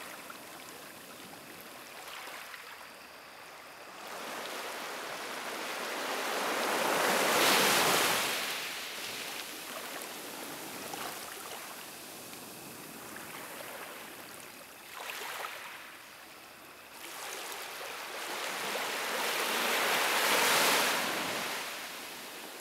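Small sea waves washing onto a beach: a steady wash of water, swelling into two louder breaking waves about seven and twenty seconds in.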